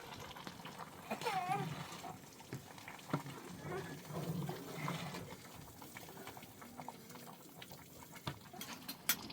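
Livestock bleating about a second in, with fainter calls after it and a few sharp knocks.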